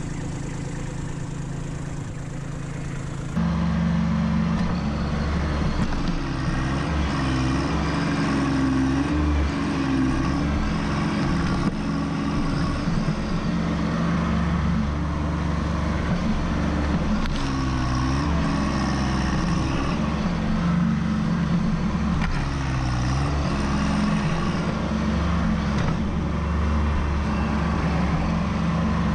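Kubota B2601 compact tractor's three-cylinder diesel engine running steadily under load, getting louder about three seconds in, its pitch dipping briefly several times as the loader works.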